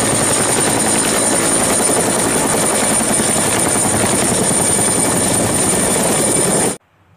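Red two-bladed utility helicopter flying low: the rotor's fast, steady chop with a high steady turbine whine over it. The sound cuts off abruptly near the end.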